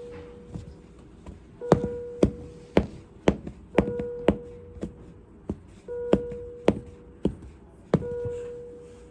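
A medical monitor alarm sounds a steady electronic tone of about a second, repeating roughly every two seconds, with sharp taps or knocks about twice a second over it.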